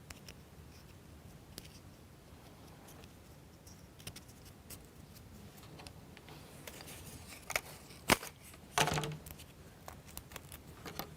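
Small plywood model-kit parts clicking and tapping as they are handled and fitted together, faint, with a few sharper clicks in the second half, the loudest about eight seconds in.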